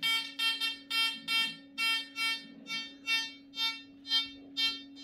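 Amiral XP-4 discriminating metal detector beeping in short tones, two to three a second, each time a gold coin is swept past its search coil: the detector is signalling the gold target. A steady low hum runs underneath.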